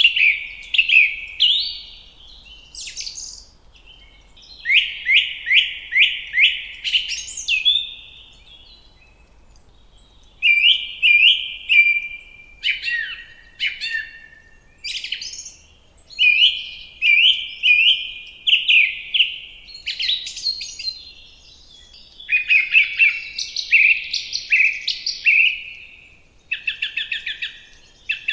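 Songbirds singing: phrase after phrase of quick, repeated chirping notes, with short pauses between the phrases.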